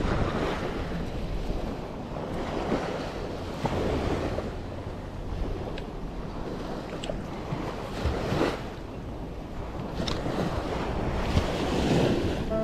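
Small waves breaking and washing up a sandy shore, surging in every few seconds, with wind buffeting the microphone.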